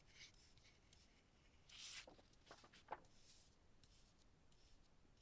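Faint scratching of pens on paper over near silence: a few short strokes, the loudest about two seconds in, and a brief tick about a second later.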